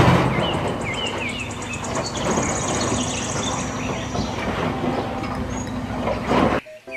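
Wheel loader's diesel engine running as it tips a bucket of dark earth into a dump truck's bed, the load spilling and rumbling in. It cuts off suddenly near the end.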